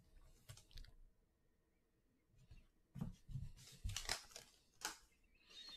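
Foil wrapper of a Panini Prizm Draft Picks football card pack crinkling and rustling in short bursts as it is handled and opened by hand, starting about three seconds in after a near-silent stretch.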